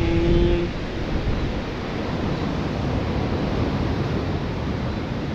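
Sea surf washing on the shore, mixed with wind buffeting the microphone. It is heaviest in the first second, then settles into a steady rush.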